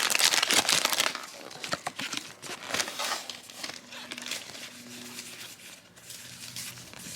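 Foil Pokemon booster pack wrapper crinkling as it is ripped open and handled, loudest in the first second and a half, with another burst of crinkles about three seconds in and fainter rustling after.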